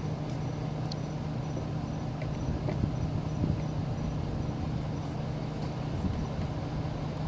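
Steady low hum of an idling vehicle engine, with a few faint clicks and rustles from handling the door tools.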